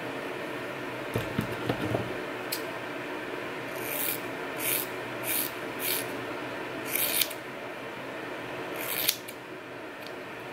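Scissors snipping through a thick section of long hair: about six short, crisp cuts from about four seconds in, the last one near the end the sharpest. Before them, a few soft clicks and rustles of hands gathering the hair.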